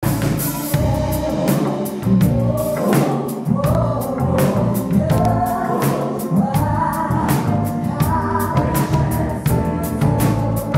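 Gospel choir singing over a live band, with electric bass and a drum kit keeping a steady beat.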